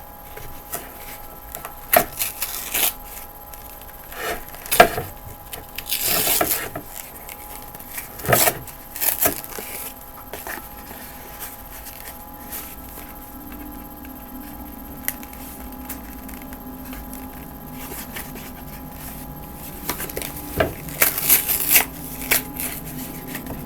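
Scattered knocks, scrapes and crackles of a container being handled and tapped to loosen a hard block of microwaved cornstarch stuck inside. The knocks come in clusters in the first ten seconds and again near the end.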